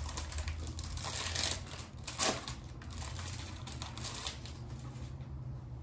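Plastic packaging crinkling and crackling as hands handle a wrapped picnic mat, with a sharp crackle a little over two seconds in.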